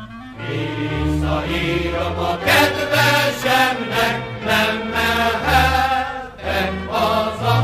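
A choir singing a song, with a deep bass part under the voices.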